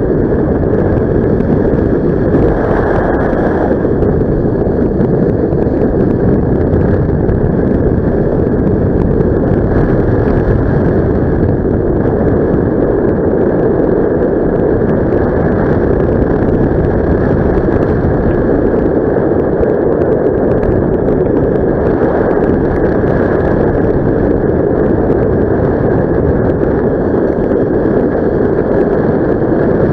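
Wind rushing over the microphone in paraglider flight: a loud, steady rush with no breaks.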